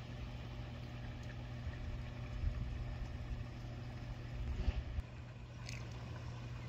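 Steady low mechanical hum with irregular wind rumble on the microphone, and a brief light tick near the end.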